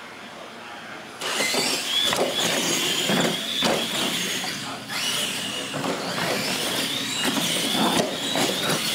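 Electric R/C monster trucks launching and racing across a concrete floor, starting suddenly about a second in: a wavering high motor whine with tyre noise, and several knocks as the trucks bounce and land.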